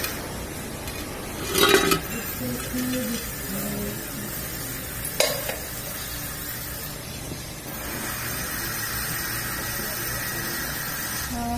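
Steady background hiss with a brief metallic clatter about two seconds in and a sharp click about five seconds in, from a spoked motorcycle wheel and its brake drum being handled.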